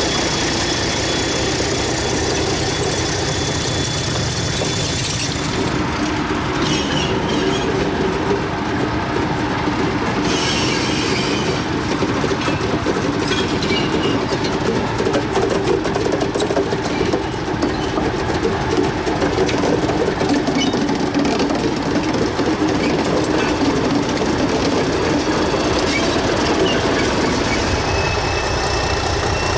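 English Electric Di-class diesel-electric locomotive running slowly under its own power on a test run, towing a dead locomotive past, with its engine running steadily and wheels clicking over the rails. A thin high squeal from the wheels comes at the start and again near the end.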